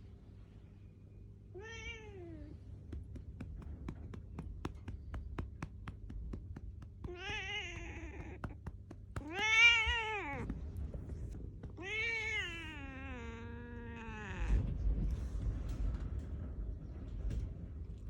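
Domestic black cat meowing four times in protest at having her rump patted; the third meow is the loudest and the last is long and falls in pitch. Light, regular pats sound through the first few seconds, and there is a low thump near the end.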